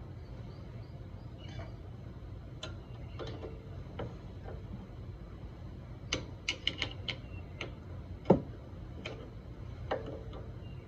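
Light metallic clicks and taps as a brake pad retaining pin and pads are worked into a Brembo brake caliper, each click with a short ring. They are scattered, with a quick run of about five clicks past the middle and the loudest single click soon after.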